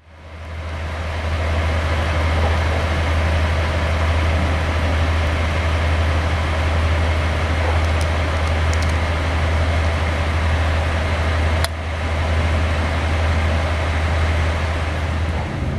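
Diesel locomotive engine running steadily with a deep hum, fading in over the first second or two, with a single sharp click about three-quarters of the way through.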